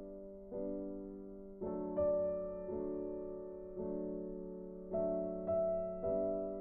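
Soft background piano music: slow chords struck about once a second, each fading before the next.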